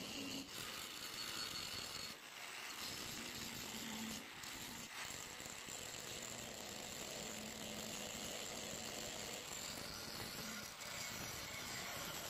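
Angle grinder with an abrasive disc grinding the steel of a rusty axe head: a steady grinding noise that dips briefly a few times as the disc eases off the metal.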